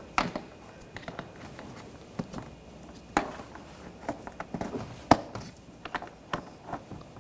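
Scattered small clicks and taps of plastic electrical connectors being handled and pushed together on the door switch wiring, the sharpest click about five seconds in.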